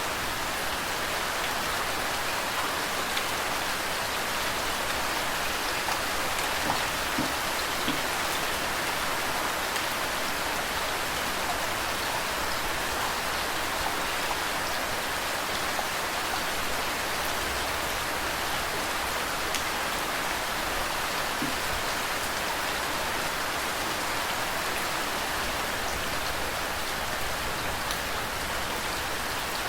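Steady rain falling, mixed with running water, with a few slightly louder drop hits around seven seconds in.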